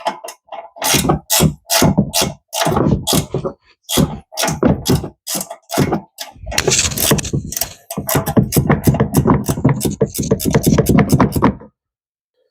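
Hand ratchet wrench clicking in repeated strokes, first spaced, then fast and continuous for several seconds, stopping abruptly near the end: a nut being run off a suspension link bolt.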